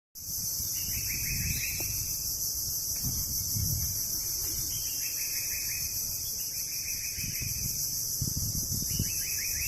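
Mangrove forest insect chorus: a steady high-pitched drone with a pulsed trill repeating every couple of seconds, over irregular low rumbles.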